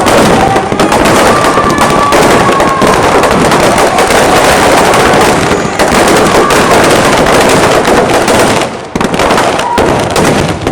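Dense, continuous crackle of firecrackers packed into a burning Ravana effigy, with rapid overlapping bangs. It thins out and dips in the last couple of seconds.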